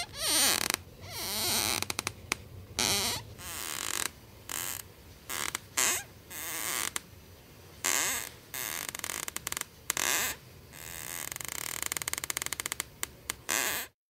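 Floorboards squeaking and creaking in a string of separate creaks, some drawn out with a pitch that bends up and down, others a fast run of tiny clicks.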